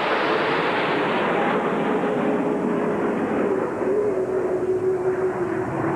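Four single-engine F-16 Fighting Falcon jets flying over in formation, their engine noise growing steadily duller as they pass and move away. A faint whine in it drops slightly in pitch.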